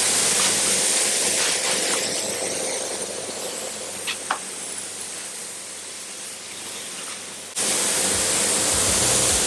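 Compressed-air spray gun hissing as it sprays nitrocellulose clear lacquer, over the steady hum of the spray booth's extraction fan. The hiss is loud for the first couple of seconds, eases off for a while, then comes back up sharply about seven and a half seconds in.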